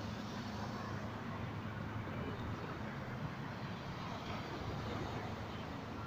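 Steady background noise: a faint low mechanical hum under an even hiss, with no distinct events.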